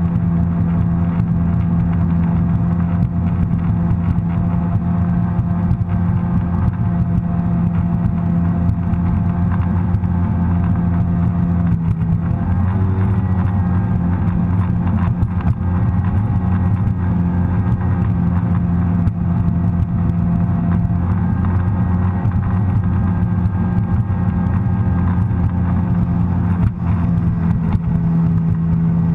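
Sea-Doo personal watercraft engine running at speed: a steady, loud drone that wobbles briefly in pitch about twelve seconds in.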